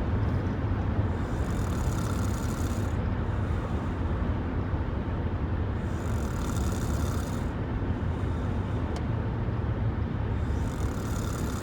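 A person snoring: a steady low rumble with a hissing breath that swells and fades about every four to five seconds.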